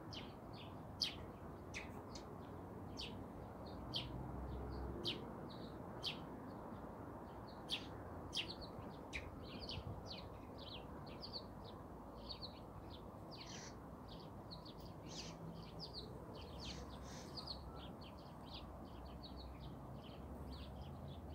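Small songbirds chirping, a busy stream of short, high calls one after another, over a steady low background rumble.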